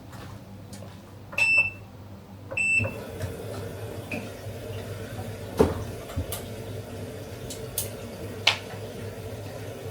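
An electric kitchen appliance beeps twice, about a second apart, as its buttons are pressed, then starts running with a steady low hum. A few light knocks and clicks of handling come over the hum later on.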